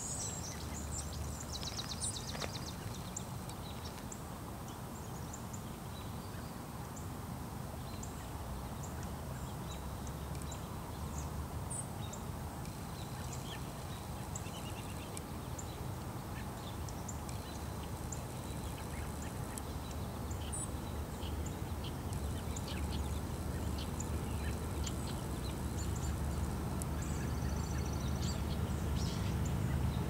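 Songbirds chirping, with a short rapid trill about a second in, over the low rumble of the approaching CSX diesel locomotives, which grows slowly louder.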